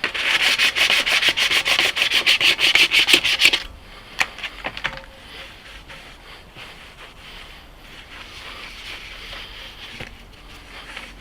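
Wet-and-dry sandpaper rubbed by hand over a JB Weld repair on an alloy wheel, in fast back-and-forth strokes of about six a second. The strokes stop about three and a half seconds in, and fainter, looser rubbing follows.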